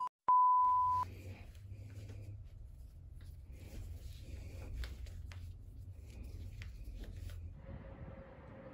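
A short steady beep, then sneaker laces being pulled and tied by hand: faint rustles and small clicks over a low steady rumble.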